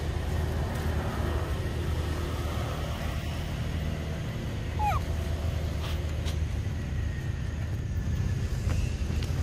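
A steady low rumble, with one short high squeak falling in pitch about five seconds in, a call from one of the monkeys.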